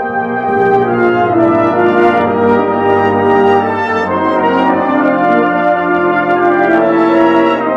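Geneva Cardinal Professional cornet playing a melody, held notes linked by shorter moving ones.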